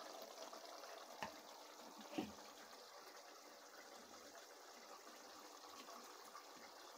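Faint, steady simmering of a mutton bone curry in an aluminium kadai, with two soft knocks about one and two seconds in.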